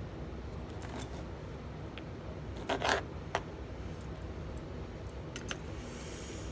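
Knife cutting ham on a cutting board: scattered light clicks and taps, with one short, louder scraping cut about three seconds in, over a steady low background hum.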